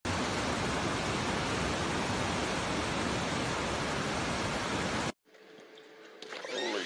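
Fast-moving floodwater rushing in a loud, steady torrent. The sound cuts off suddenly about five seconds in, leaving only faint indoor noise.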